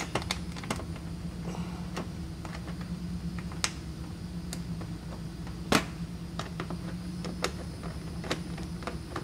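Scattered light clicks and taps of hands fitting a metal cover plate and cable clamp back onto an electric water heater's wiring junction box, with one sharper click a little past halfway. A steady low hum runs underneath.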